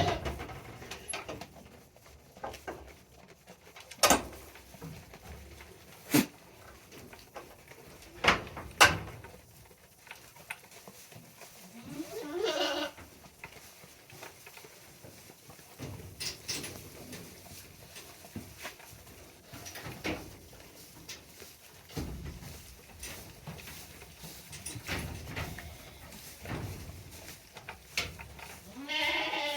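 Goats bleating, one wavering call about twelve seconds in and another near the end, with several sharp knocks in the first ten seconds.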